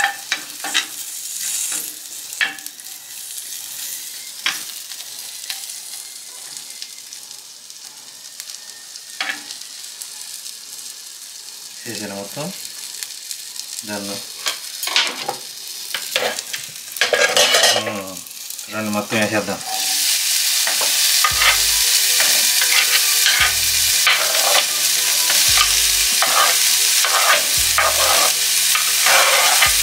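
Chopped cactus frying in hot oil in a pan, sizzling steadily while a spatula stirs and scrapes the pan in short strokes. About twenty seconds in, the sizzling suddenly grows louder and denser.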